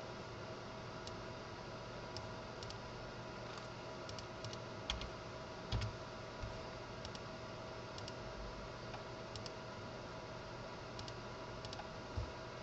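Scattered computer keyboard keystrokes and mouse clicks, a few at a time, over a steady faint electrical hum. There are a few duller low knocks about five and six seconds in and again near the end.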